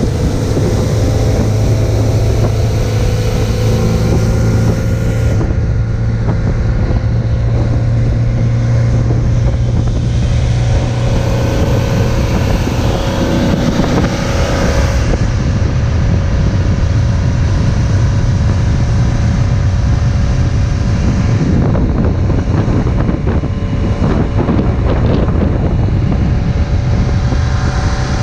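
A motorboat's engine running steadily at cruising speed across open water, with wind buffeting the microphone.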